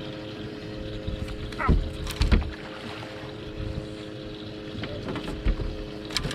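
A boat's motor humming steadily on the water. About two seconds in there is a short falling squeal, followed by a few loud knocks, which are the loudest sounds; more knocks come near the end.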